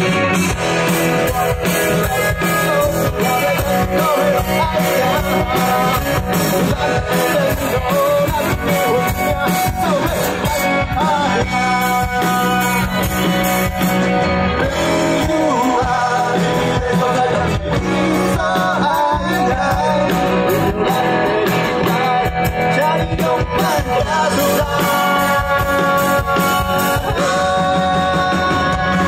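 Live rock band playing: electric guitars, bass guitar and a drum kit going at a steady, even loudness.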